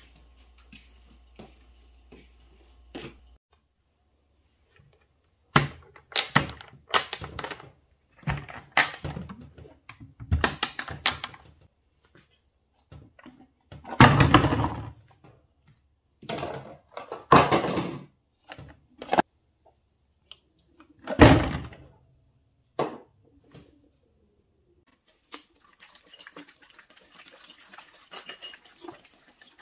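Ice being put by hand into a Snow Peak plastic water jug: a run of irregular knocks, thunks and rustles. Near the end comes a steady trickling splash as bottled water is poured into the jug.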